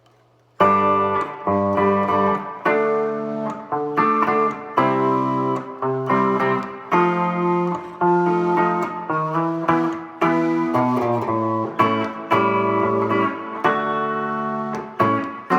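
Solid-body Les Paul-style electric guitar on its bridge pickup, played clean through a 5E7 tube amplifier with a little digital reverb and compression: a passage of picked chords and notes, each ringing on, starting about half a second in.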